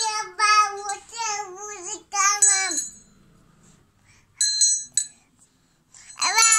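A small child's high-pitched voice in long, drawn-out sing-song syllables, with a small bell ringing briefly twice, once as the voice trails off and again about a second and a half later. It is quiet in between, and the voice comes back near the end.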